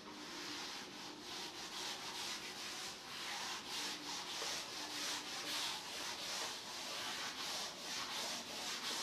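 Wooden-backed blackboard duster wiping chalk off a blackboard in repeated quick back-and-forth strokes, a scrubbing hiss that swells with each stroke.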